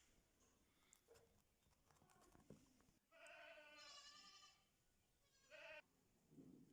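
Indian ringneck parrot vocalising: one long, wavering, nasal call about three seconds in, then a short call near the end.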